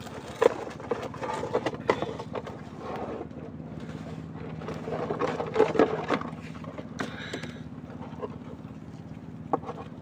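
An engine running steadily with a low hum, with irregular knocks and clatter over it, the loudest about half a second in and around six seconds in.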